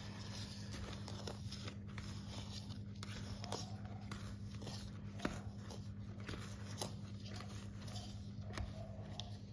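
A spoon stirring stiff cookie dough in a plastic mixing bowl: irregular scraping and knocking against the bowl, over a steady low hum.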